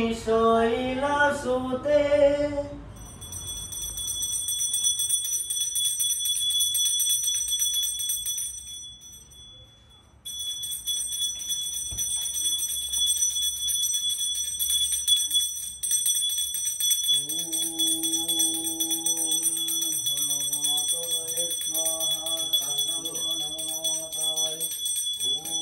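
Puja hand bell rung continuously, a steady high ringing that fades out around eight seconds in and starts again abruptly about ten seconds in. A man chants mantras at the start, and again from about seventeen seconds in, in held, level notes.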